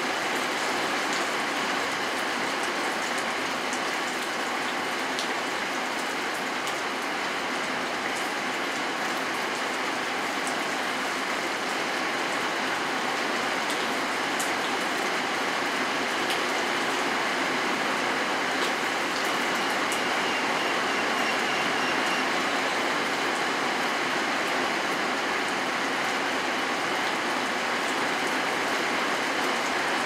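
Steady rain falling: a dense, even hiss of drops with a few faint ticks of single drops here and there.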